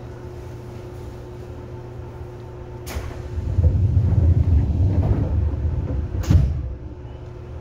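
Under-floor equipment of a Seibu 2000 series commuter train car, heard from above its line breaker: a sharp clunk about three seconds in, a few seconds of loud low rumbling, then another sharp clunk before the rumble dies away.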